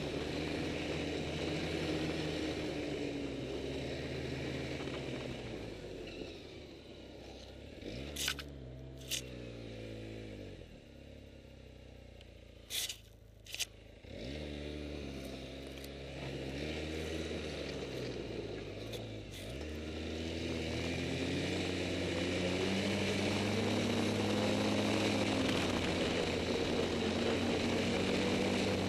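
Snowmobile engine running under way: it slows to a low, near-idle pitch around the middle, speeds up again, dips once more, then accelerates and holds a higher steady pitch near the end. Two pairs of sharp knocks come in the middle.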